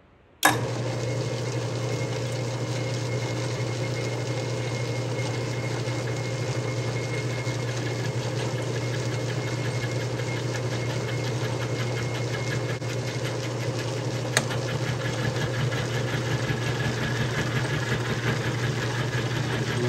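Atlas TH54 lathe switched on about half a second in, its motor and drive spinning an end mill and then running steadily with a low hum. A single sharp click comes about 14 seconds in.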